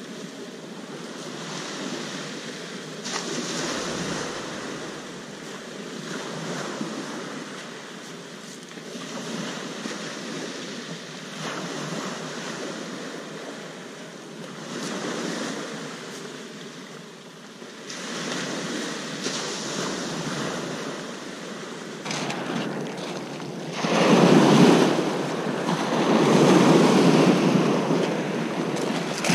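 Surf washing up a shingle beach, surging every few seconds, with wind on the microphone. It gets louder over the last few seconds.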